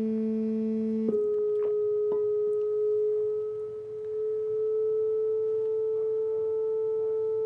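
Steady sine test tone driving a Kundt's tube, stepping up an octave from 220 Hz to 440 Hz about a second in, then holding at 440 Hz, briefly quieter near the middle. The 440 Hz tone is high and piercing: "starting to hurt", "the most annoying".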